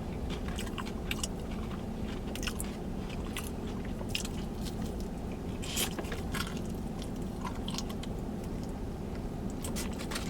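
A person chewing and biting crunchy fried food close to the microphone: scattered crisp crunches over a steady low background, with a quick run of crunches near the end.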